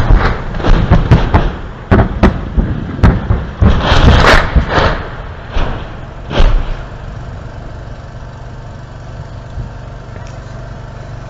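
Shells exploding during the shelling of a village: a rapid, irregular series of sharp blasts over the first six seconds or so, the last one coming a little after six seconds in, then a steady lower background noise.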